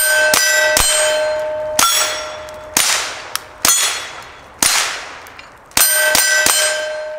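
Taurus TX22 Compact .22 LR pistol fired about ten times at steel plates, the hits ringing the steel with clear tones that die away between shots. The shots come roughly one a second, with a quicker run of three near the end.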